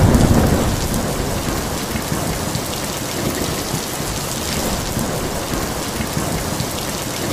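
Heavy rain falling steadily in a thunderstorm, a low thunder rumble fading away in the first second.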